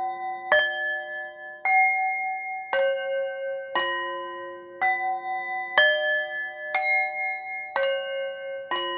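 Meditation background music of slow struck bell-like notes, about one a second, each ringing on until the next is struck.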